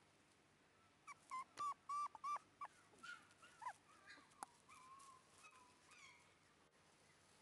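Shiba Inu puppy, about five weeks old, whimpering: a quick run of short, high whines starting about a second in, then softer, longer whines that trail off.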